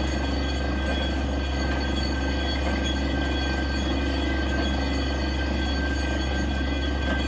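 Truck-mounted borewell drilling rig running steadily, a deep engine drone with a steady high whine over it, while compressed air blows groundwater and rock cuttings up out of the bore.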